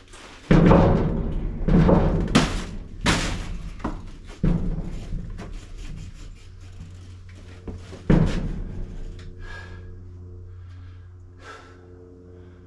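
A series of heavy thumps and bangs of wooden boards being knocked and fitted into a shelf frame inside a steel shipping container, each hit ringing and echoing off the metal walls. There are five hard hits in the first five seconds and one more about eight seconds in.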